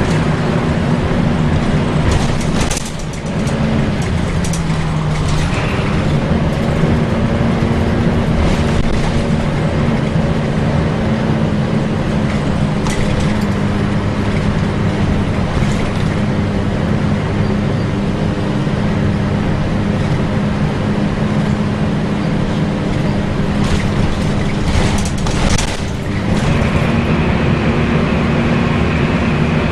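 Volvo B10BLE single-deck bus engine and cooling fan heard from inside the bus under way, a steady loud drone with the fan's 'hoover' whine. The engine note dips for a couple of seconds a few seconds in and climbs back. Near the end a higher whine comes in, with rattles from the bus body.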